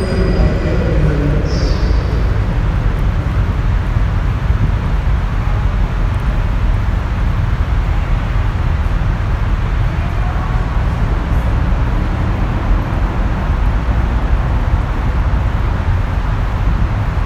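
Steady vehicle rumble: low road and engine noise with a hiss above it and no distinct events.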